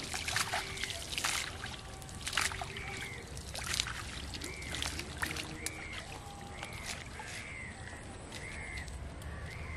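A hand slapping and scooping pond water, a quick run of splashes in the first half that stop a little past the middle. Through the second half a bird calls over and over in short arching notes, about one a second.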